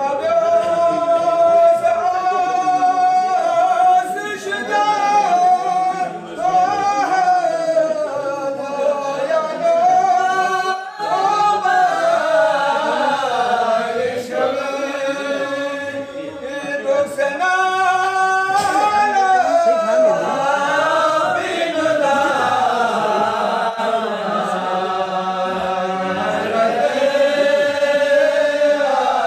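Male voices singing a Balti-language qasida unaccompanied: a slow, melodic devotional chant with long held and gliding notes.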